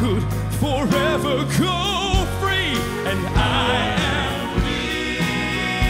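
Southern gospel male vocal quartet singing with vibrato over piano and band. From about halfway the voices hold a sustained chord in harmony, over a regular beat.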